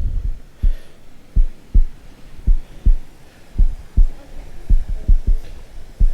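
Dull low thumps of a hiker's footfalls on rock, a little under two a second in an uneven left-right rhythm, carried into the handheld phone's microphone.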